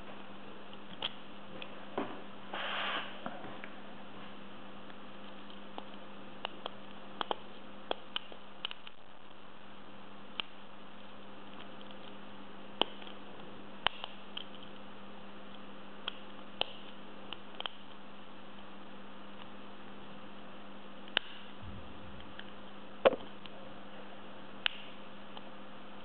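Lock picks working the pins of a chrome-plated Iseo lock cylinder: scattered sharp metal clicks at irregular intervals, with a brief scrape about three seconds in. A steady hum runs underneath.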